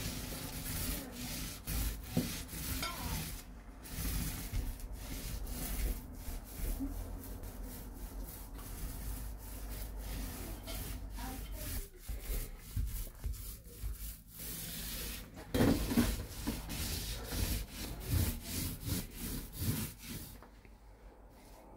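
Paintbrush stroking paint onto a panelled door: a quick, continuous run of scratchy, rubbing brush strokes that eases off near the end.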